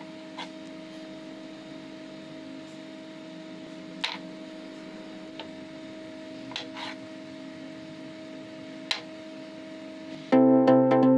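A short steel pipe ring knocking and clicking on a board a handful of times as it is pushed and tumbles, the sharpest knocks about four and nine seconds in, over a steady low hum. Electronic music starts near the end.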